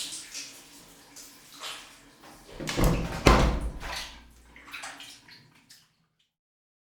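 Bathroom shower sounds as the shower winds down: scattered splashes, drips and small knocks, with a loud thump about three seconds in. Then it all stops dead.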